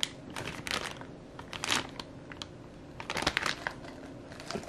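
Packaging crinkling in several short bursts as newly delivered bike parts are handled and unwrapped.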